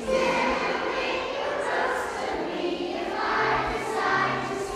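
A group of kindergarten children singing a song together as a choir.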